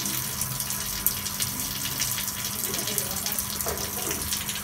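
A stream of water pouring into a fish pond, splashing steadily onto the surface as the pond refills.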